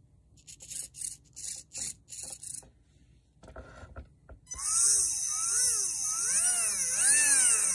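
Short whirring bursts from an RC steering servo being worked back and forth, then, a little past halfway, an unmounted Tamiya Torque-Tuned 540 brushed motor spinning up with no load. Its pitch rises and falls again and again as the throttle is worked during a bench test of the electronics.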